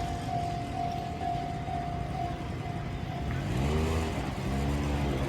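Japanese railway level crossing's electronic warning bell ringing about twice a second, then stopping about three seconds in. An engine follows, climbing in pitch twice as a vehicle accelerates away.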